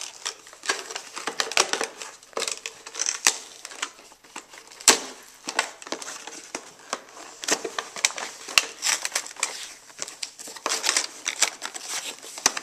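Cardboard toy box being opened by hand: irregular crinkling, crackling and tearing as its flaps and tabs are pulled apart.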